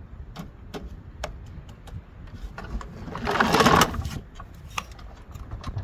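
Clicks and knocks of a push mower being handled and tipped up on its side, with a louder scraping rush a little past three seconds in.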